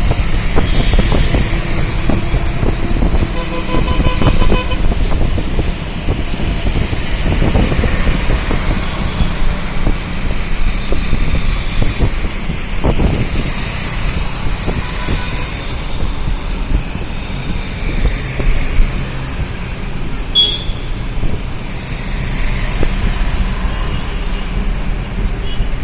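Busy road traffic with a heavy, constant low rumble and vehicle horns tooting, one about four seconds in and more in the middle. A brief high squeak comes near the end.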